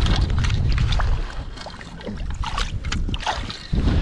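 Shallow seawater sloshing and splashing around rocks as someone wades and reaches among them, with heavy low rumbling buffets on the microphone during the first second and again near the end.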